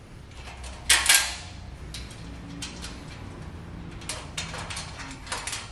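Galvanized steel frame parts and hardware being handled as bolts are fitted by hand: a loud metallic rattle about a second in, then several light clicks near the end.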